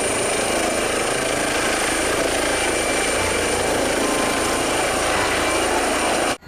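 Helicopter engine and rotor noise: a steady rushing sound with a thin high whine, cutting off suddenly near the end.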